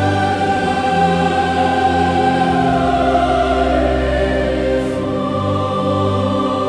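Slow choral music with orchestral accompaniment: voices hold long notes over sustained low strings.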